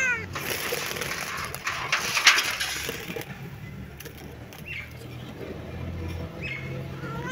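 Kitten meowing: the tail of one call at the very start and another starting near the end, with a couple of faint short calls between. In the first three seconds a loud rushing noise covers everything.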